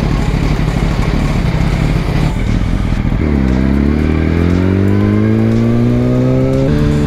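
Motorcycle engine running under load with a loud rushing sound. About three seconds in its note drops at a gear change, then climbs steadily as the bike accelerates and drops again at another upshift near the end.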